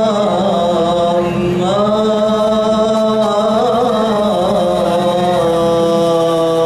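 Male nasyid group singing a cappella in close harmony, several voices holding long notes over a steady low bass note, the chord shifting a couple of times.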